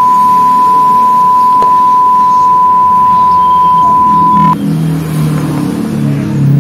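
Test-card tone: one steady, loud beep at about 1 kHz that cuts off suddenly about four and a half seconds in. After it, a lower, wavering motor-like drone rises in the background.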